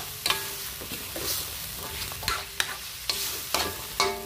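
A spatula scraping and knocking against a pan, stirring chicken pieces and green peas as they sauté, over a steady sizzle. The knocks come irregularly, about eight times, and some leave a short metallic ring.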